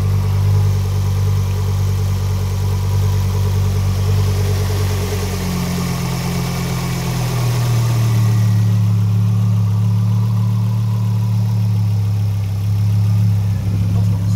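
Ford Focus ST225's 2.5-litre turbocharged five-cylinder engine idling steadily with a tap in it. The owner suspects the tap is a broken piston skirt and is sure it is not the crank.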